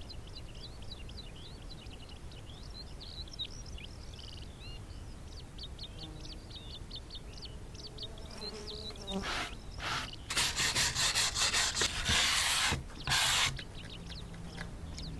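Small birds chirping continuously. About nine seconds in, loud rasping strokes of wood being worked by hand begin, first as a quick run of about five or six strokes a second, then a longer stretch, then one more short burst.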